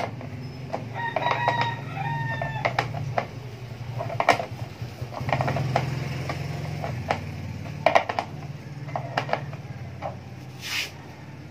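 A rooster crows once about a second in, a call of about a second and a half. Scattered clicks and knocks of a screwdriver and metal body bolts against a motorcycle's plastic handlebar cover run through it, over a low steady hum.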